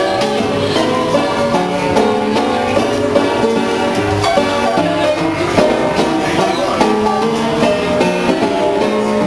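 Seeburg coin-operated piano playing from its perforated paper music roll, a fast, continuous stream of notes. The instrument is badly out of repair.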